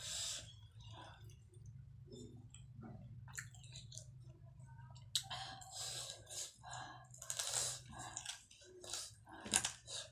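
Close-up mouth sounds of a person chewing fried chicken lollipop, soft at first, then louder and busier from about five seconds in.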